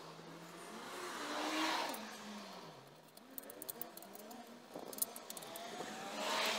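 Vehicles passing by, their tyre and engine noise swelling and fading twice with a falling pitch. In between come a few light clicks and taps as the aluminium intercooler is handled on its metal carrier.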